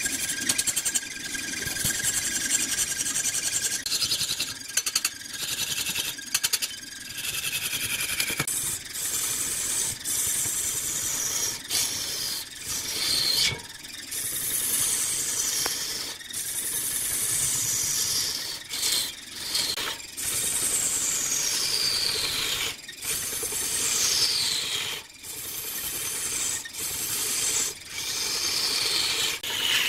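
Woodturning tool cutting into a wood block spinning on a lathe: a continuous high-pitched scraping with squeals that fall in pitch every few seconds, broken by many brief gaps.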